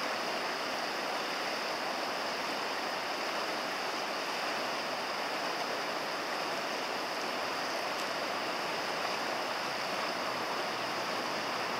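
River water rushing steadily over a shallow, rippling riffle.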